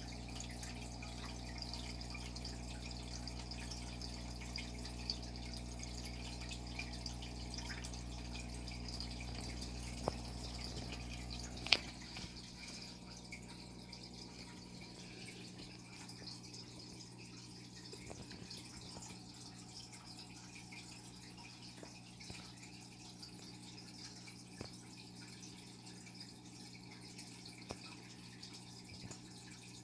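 Aquarium water trickling and dripping over a steady low hum. The hum stops with a sharp click about twelve seconds in, leaving the trickle and small drips.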